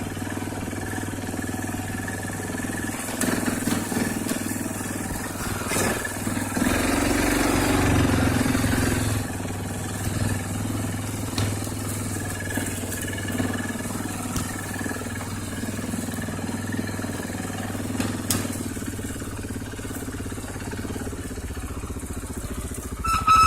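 Arctic Cat TBX 500 ATV's single-cylinder four-stroke engine running while riding, louder for a couple of seconds about a third of the way in as it is given more throttle. Near the end the rear brakes squeal with a high, steady whine, a sign they need grease.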